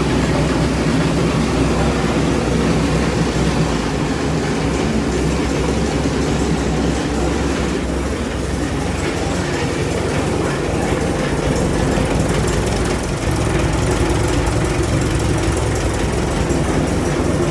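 1947 Minneapolis Moline R tractor's four-cylinder gasoline engine running steadily at idle, soon after start-up.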